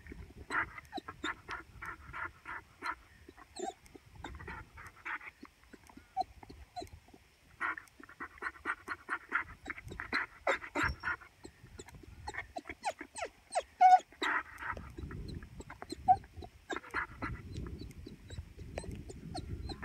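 German shorthaired pointer whining in repeated bursts of quick, pulsed whimpers. A low rumbling noise runs underneath, heaviest at the start and in the last few seconds.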